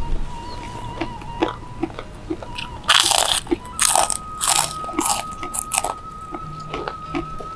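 Crisp kerupuk cracker crunched between the teeth: a run of loud crunching bites starting about three seconds in and lasting around three seconds, with softer chewing around them.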